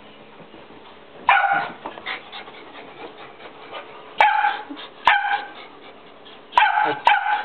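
A dog barking in five sharp barks, the first about a second in, then three spaced about a second apart and the last two close together near the end: territorial barking at a stray beagle in the house.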